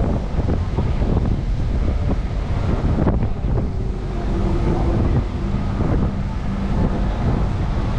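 Wind buffeting the microphone: a heavy, gusting rumble. About halfway through, a faint low hum joins in for a few seconds.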